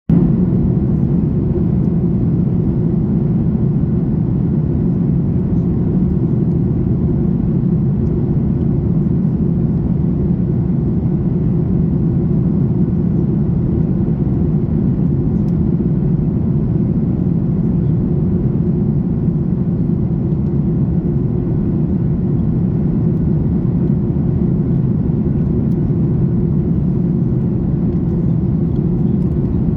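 Steady cabin drone of a Boeing 737 MAX 8 in flight, heard inside the cabin: engine and airflow noise as a deep, even roar that does not change.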